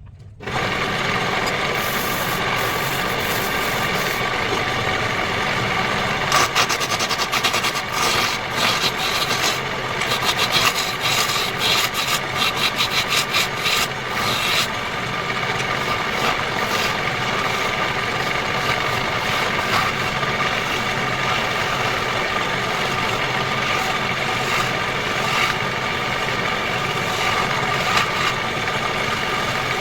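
Wood lathe running with a steady motor hum, and a turning tool scraping against the spinning wood in a rapid, rattling series for several seconds through the middle.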